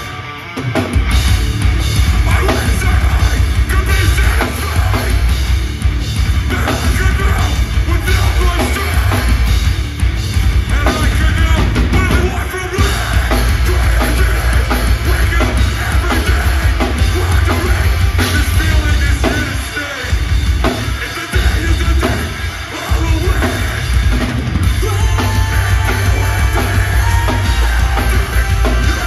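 Metalcore band playing live: distorted electric guitars over a pounding drum kit with heavy bass drum, and shouted vocals. The music drops out briefly twice in the last third.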